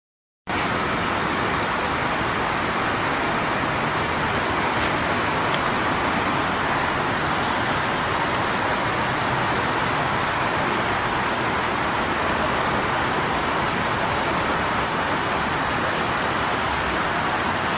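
Steady, even rushing noise with no distinct pitch, starting abruptly about half a second in after silence, with a few faint clicks in the first few seconds.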